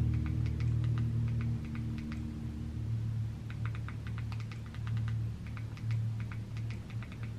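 Quick runs of small clicks from an Amazon Fire TV remote's buttons being pressed again and again to step across the on-screen keyboard, with a pause of about a second midway. A steady low hum runs underneath.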